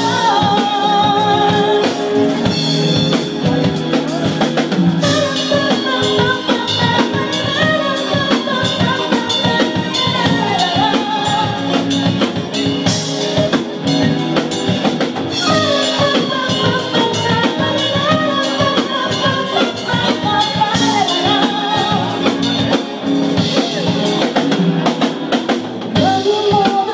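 Live band playing: a drum kit keeps the beat under guitar and a wavering melody line.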